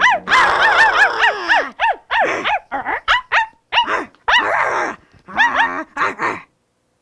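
Two women imitating dog barks with their voices, 'wal wal', in a rapid run of short yelping barks traded back and forth.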